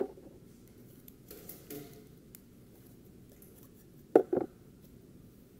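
Cloud slime being handled: soft squishing and rustling, then two sharp pops or clicks in quick succession about four seconds in.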